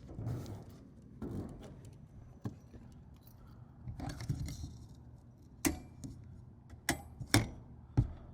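Rustling handling sounds and a series of sharp clicks and knocks, four louder ones coming in the last three seconds.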